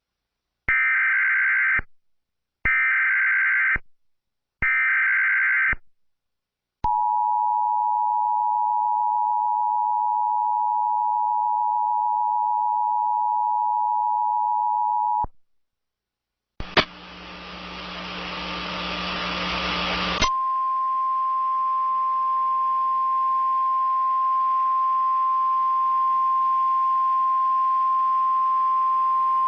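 Emergency Alert System tones: three short bursts of SAME digital header data, then the two-tone attention signal held for about eight seconds. After a brief gap comes a few seconds of static hiss with a low hum, then a single steady warning tone over fainter hiss, the NOAA Weather Radio alarm tone.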